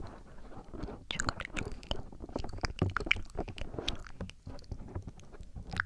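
Close-miked ASMR mouth sounds: a quick, irregular run of wet clicks and smacks from the lips and tongue.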